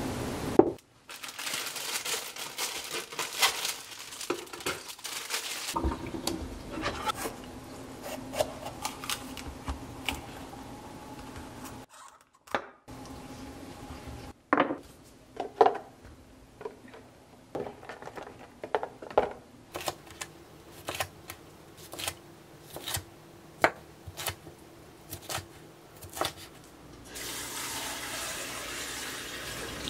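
Kitchen knife cutting fresh red and yellow bell peppers on a wooden cutting board: crisp crunchy slicing, then a run of chopping knocks on the board, about one or two a second, as the peppers are diced.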